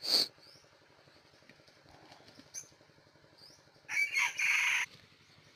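Red junglefowl cock crowing once, a short clipped crow lasting about a second, starting about four seconds in. There is also a brief sharp sound right at the start.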